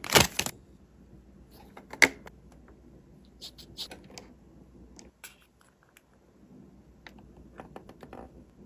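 Clear plastic zip-lock bag crinkling loudly for about half a second, followed by a sharp click and scattered light clicks and taps as hands handle a plastic RC model truck.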